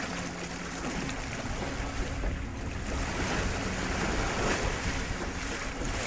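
Wind and open-ocean waves rushing past a moving boat, with wind buffeting the microphone. The rushing builds about a third of the way in and stays loud.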